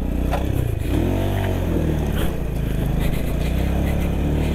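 Jettor Snake 250 motorcycle engine running at low speed, revving up and back down once about a second in, with a few short knocks.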